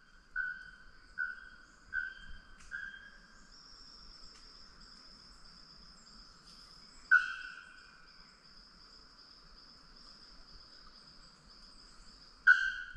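Single whistled tinamou call notes: a run of four about a second apart, then a louder note about seven seconds in and another near the end. They are either the macuco call whistle or a macuco answering it. Under them runs a steady high insect drone.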